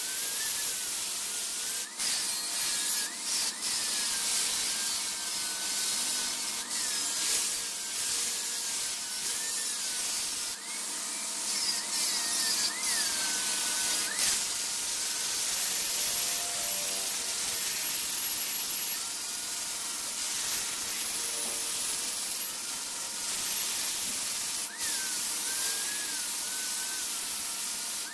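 Wood turning on a wood lathe with a tool rubbing against the spinning piece: a steady scraping hiss with a thin whine that wavers up and down. It breaks off briefly a few times.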